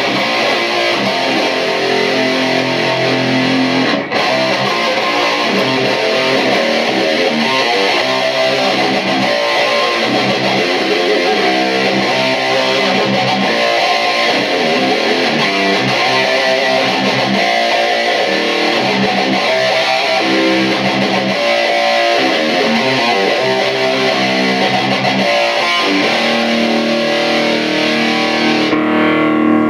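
A band playing an instrumental intro with distorted electric guitar, loud and without vocals. It breaks off for a moment about four seconds in. Near the end the bright upper wash cuts off, leaving a held chord ringing.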